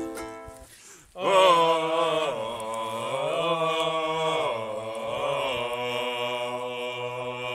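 Men's voices chanting together in low, long-held tones that slide slowly up and down, starting about a second in as the last plucked ukulele notes die away.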